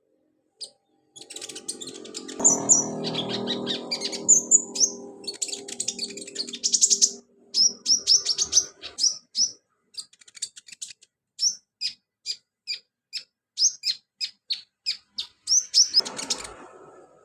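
Konin (kolibri ninja) sunbird singing a fast run of short, high chirps and twitters, slowing in the second half into single sharp chirps about two a second. A lower steady buzzing sound runs under the song for the first few seconds.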